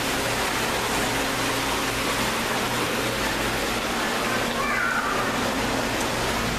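Steady rush of water pouring into a koi pool, over a low steady hum. A brief falling tone sounds about two-thirds of the way through.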